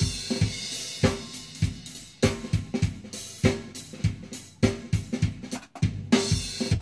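Recorded acoustic drum kit played back: a fast run of kick, snare and tom hits with cymbal wash, sounding big and roomy from stereo ribbon room mics heavily compressed with API 2500 compressors, with no reverb added. The playback cuts off suddenly at the very end.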